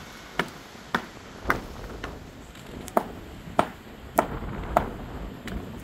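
A series of sharp knocks at a steady rhythm, about one every half second or so, with a short pause in the middle.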